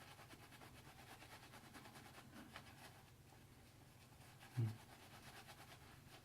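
Faint, rapid brushing and swishing of a shaving brush working lather, with one brief soft low sound about four and a half seconds in.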